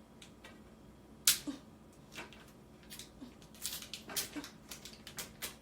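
Scattered clicks and light knocks of kitchen items being handled at a counter, with one sharp click about a second in and a quick run of them past the middle.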